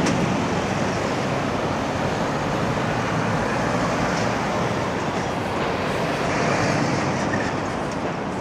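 Steady road-traffic noise of heavy lorries and cars driving past close by: a tractor unit and a Scania eight-wheel skip lorry go by, followed by a stream of cars.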